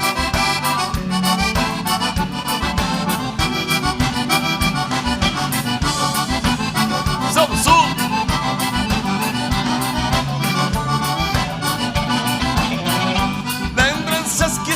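Live gaúcho dance band playing an instrumental break, the accordion leading the tune over a steady bass and drum beat.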